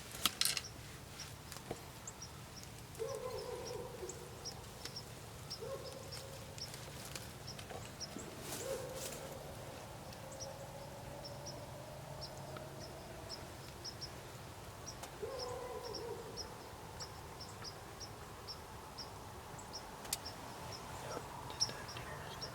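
Birds calling in open country: a steady run of short, high chip notes, about two a second, with a few brief lower calls now and then. A couple of sharp clicks are heard near the start and again later.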